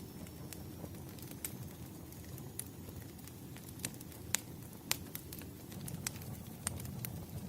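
Wood fire burning, with irregular sharp crackles and pops over a low steady rush of flame.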